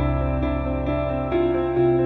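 Background music: plucked guitar notes with echo over a sustained low bass, a new note or chord about every half second.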